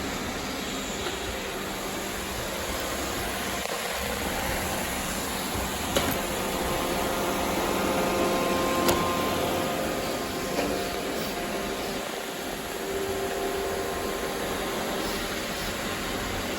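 Robot vacuum cleaners running, a steady whir, with a few sharp clicks about six and nine seconds in.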